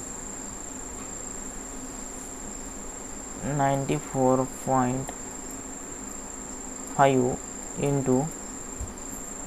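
A steady high-pitched whine with a low hiss under it. Two short bursts of a voice, a few syllables each, come about halfway through and again near the end.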